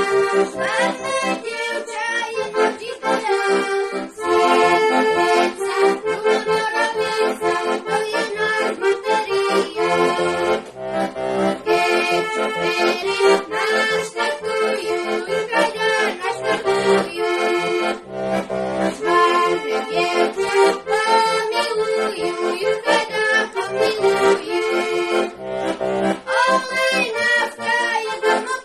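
A small diatonic button accordion (heligónka) playing a lively Slovak folk song tune without pause, melody over pumping bass and chord notes, with a boy's voice singing along in places.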